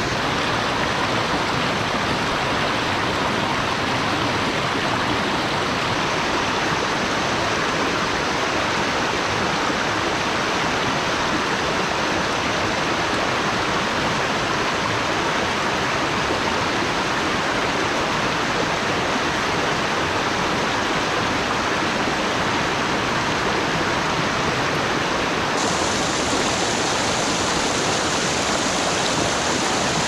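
Rainforest stream cascading over rocks: a steady rush of water that turns a little brighter and hissier near the end.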